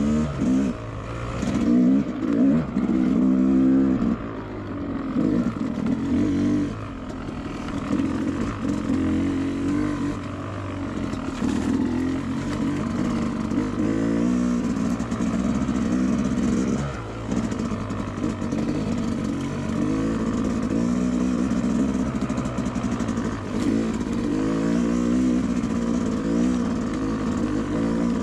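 Two-stroke dirt bike engine being ridden, revving up and down over and over as the throttle is worked, its pitch rising and falling every second or two.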